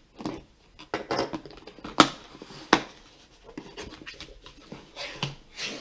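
Cardboard box being opened by hand: scraping and rustling of cardboard with a few sharp snaps, the loudest about two seconds in and again a little later.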